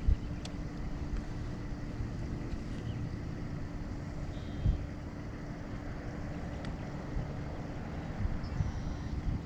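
Steady hum of a boat motor with a low rumble of wind on the microphone, and a brief knock about halfway through.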